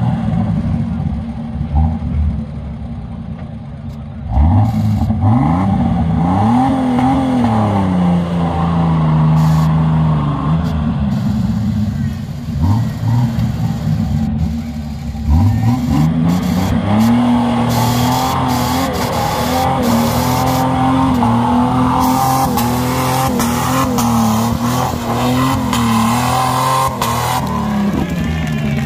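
Modified off-road 4x4's engine revving hard as it strains to climb a steep dirt bank. It revs up about four seconds in, eases off, then revs up again about fifteen seconds in and holds high, wavering, until it drops back near the end.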